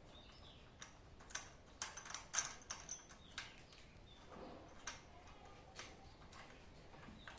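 Sharp metal clicks and taps from an Allen key and the small clamp bolts being unscrewed and handled. They come in a quick cluster from about one to three and a half seconds in, then a few scattered ones.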